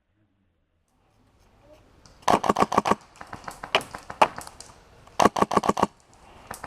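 Airsoft guns firing: two short full-auto bursts of rapid sharp cracks, about eight or nine a second, with a few single shots between them, starting about two seconds in.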